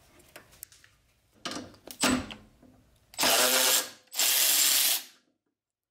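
Ratchet wrench driving a socket on a long extension, loosening the Allen-head bolts that hold a headlight level sensor to its bracket. A few clicks and knocks come first, then two runs of fast ratcheting of about a second each.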